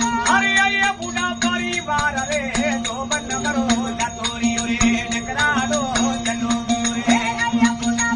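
Indian devotional bhajan music: a steady drone under a gliding, ornamented melody line, with rhythmic rattling percussion keeping time.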